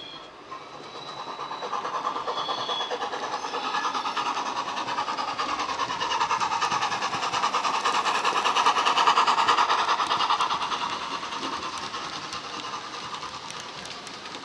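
Hornby OO-gauge rebuilt W1 model steam locomotive running past, its DCC sound decoder (SWD A4 sound file) playing steam locomotive sounds through a bass-enhanced speaker, mixed with the rattle of model wheels on the track. The sound grows louder as the engine comes past, is loudest a little after halfway, and fades as the coaches follow.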